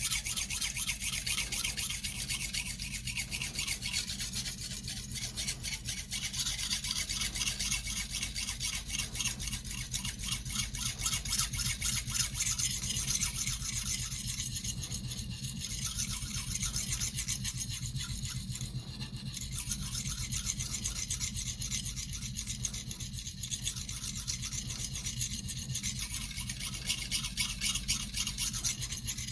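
Shun nakiri blade being sharpened by hand on a whetstone: steel scraping across the stone in rapid, continuous back-and-forth strokes.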